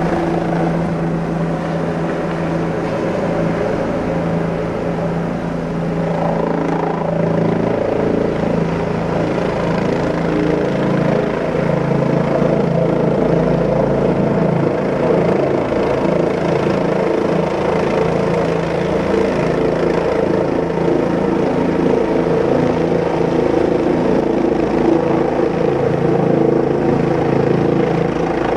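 Helicopter in flight, heard from inside the cabin: a steady, loud drone of engine and rotor with several fixed humming tones.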